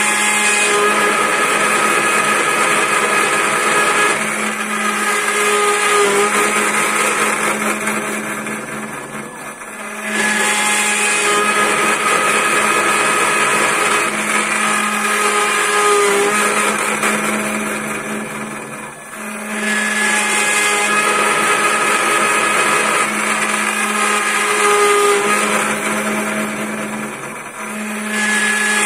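A homemade CNC lathe's milling spindle, fitted with a 6 mm two-flute flat-end mill, is cutting a spinning block of wood into a sphere. A steady machine whine runs under the cutting noise, which swells and fades as the tool makes a pass about every nine or ten seconds.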